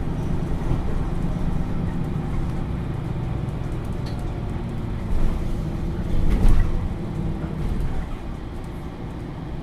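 Diesel engine of a MAN Lions City A21 NL323 city bus running, a steady low rumble heard from inside the passenger cabin, with a thump about six and a half seconds in.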